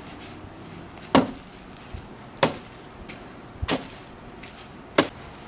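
Bean bags thrown one after another and hitting a bean bag toss board: four sharp thuds about a second and a quarter apart.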